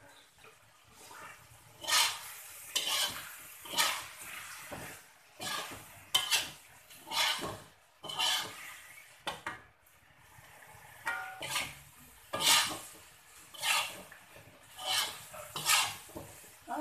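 Slotted metal spatula scraping and clattering against a metal wok as a thick curry is stirred, in strokes about once a second with a short pause partway through.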